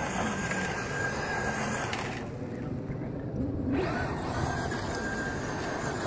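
A Traxxas Slash 2WD RC short-course truck driving and sliding on loose dirt: a steady faint high motor whine over the hiss of tyres throwing up dirt.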